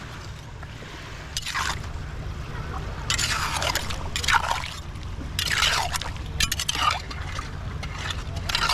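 Several wet, splashy scrapes of digging in waterlogged tidal-flat mud for Manila clams, coming in separate strokes about a second or two apart.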